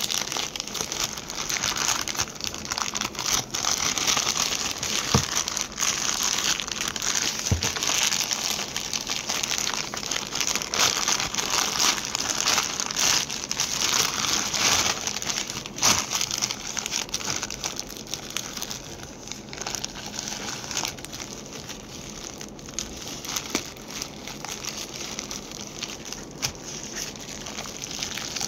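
Crinkly plastic parcel wrapping crackling and rustling continuously as it is pulled and torn open by hand, busier for the first half and softer after about seventeen seconds.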